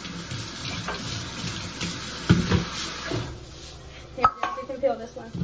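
Kitchen tap running into a plastic colander, with a clunk about two seconds in and the water shutting off a second later; a sharp metal knock follows near the end.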